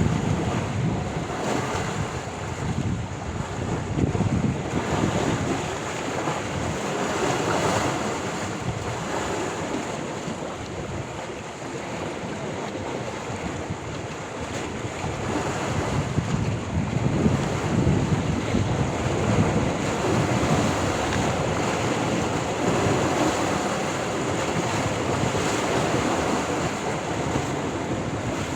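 Sea waves breaking and washing ashore in a continuous, rising and falling surf, with wind buffeting the microphone.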